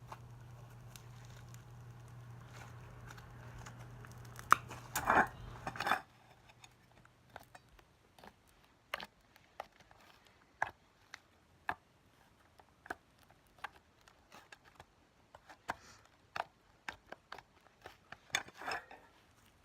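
Slime being worked by hand, giving scattered short sticky clicks and little pops, roughly one a second, after a louder stretch of handling noise about five seconds in. A low steady hum runs under the first six seconds.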